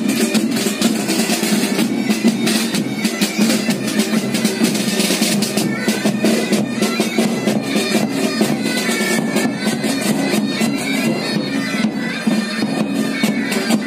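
Pipe band playing: bagpipes sounding steady drones under a chanter melody, with snare and bass drums beating a dense marching rhythm.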